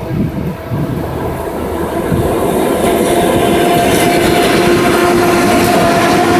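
ER9T electric multiple unit running through a station, its running noise growing louder as it approaches; about halfway through a steady tone comes in over the rumble.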